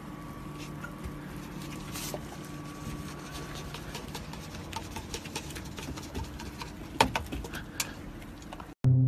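A goat nosing at a paper cup and moving in straw: faint scattered clicks and crinkles, with sharper ticks about seven and eight seconds in, over a low steady hum.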